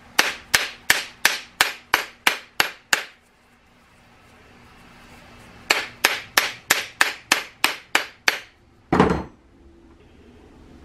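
Sharp taps on a 3D-printed plastic bath bomb mold, about three a second, in two runs of about nine taps, then one heavier thump near the end: knocking to loosen a bath bomb that is stuck fast in the mold.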